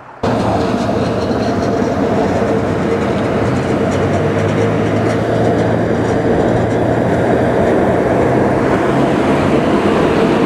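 Restored PCC electric streetcar running along the street track and passing close by: a steady hum with the rolling noise of its wheels on the rails, growing slightly louder as it draws near.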